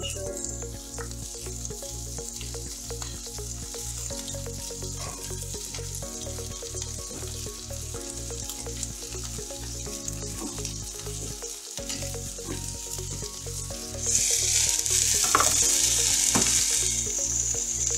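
Spring onions and sea pumpkin leaves sizzling as they fry in garlic oil in a pan; the sizzle grows much louder about fourteen seconds in. Background music with a steady beat plays underneath.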